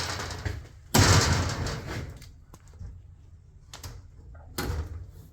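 Red oak cabinet doors being shut and worked: a loud knock with a rattle about a second in, a small click near four seconds, and another knock near the end.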